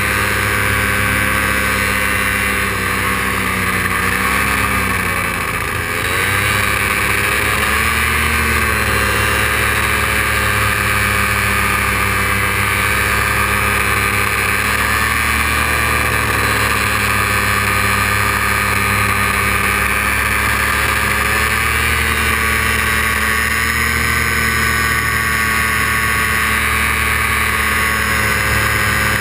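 Paramotor engine and propeller running steadily at high power during a climb, its pitch wavering slightly and easing off briefly about five seconds in before coming back up.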